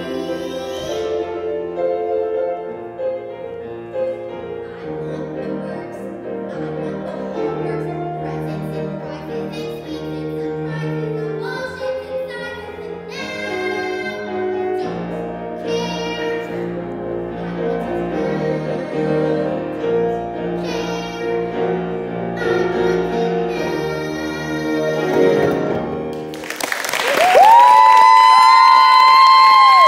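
A young girl singing a musical-theatre song solo to grand piano accompaniment. Near the end she belts a long, loud high final note and then cuts it off.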